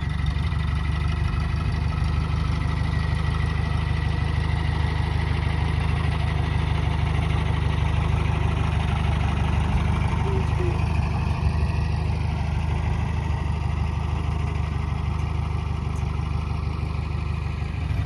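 John Deere tractor engine running steadily at low speed while the tractor moves about and tows a grain auger: a low, even, pulsing drone.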